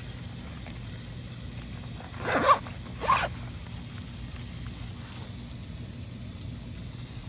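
A zip on a carp retainer sling pulled twice in quick succession: two short rasps about half a second apart, over a steady low hum.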